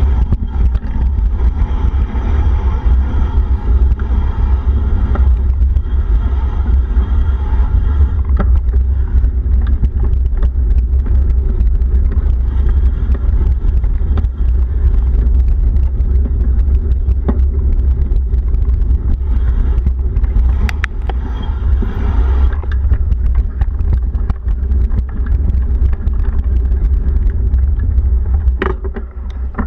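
A steady low rumble of a vehicle in motion, with a few faint clicks and knocks.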